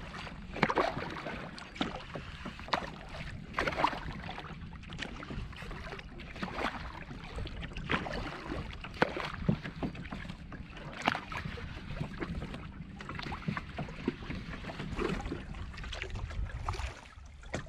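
Kayak paddle strokes, the blades splashing into the water about once every second or so, over a steady rumble of wind on the microphone.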